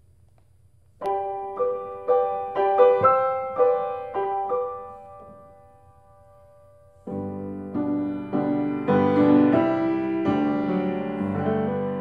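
Grand piano played solo: a slow phrase of single notes in the middle register starts about a second in and rings away, then fuller, lower chords come in at about seven seconds.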